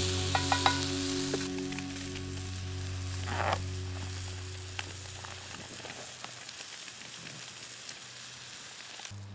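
Sliced mushrooms and onions sizzling in a steel pan over a wood-fired camp stove, with a few light knocks of a wooden spatula against the pan in the first second. A low steady drone underneath fades away over the first half.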